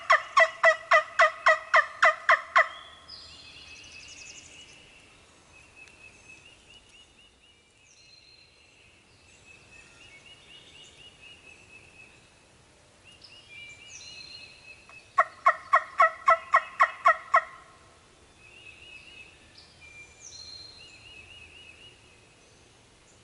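Handmade wing bone turkey call yelping: a fast, loud run of hen-turkey yelps, about four a second, at the start and another run about fifteen seconds in. Songbirds sing faintly in between.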